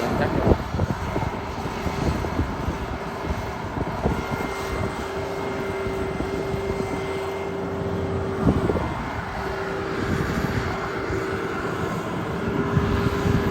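Kubota DC688Q combine harvester running steadily while cutting rice: engine and threshing machinery with a steady whine and scattered knocks.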